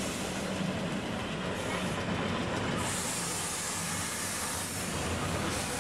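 Vintage narrow-gauge electric locomotive and coaches rolling past slowly on a station track: a steady rumble of wheels on rail, with a spell of hiss about three seconds in.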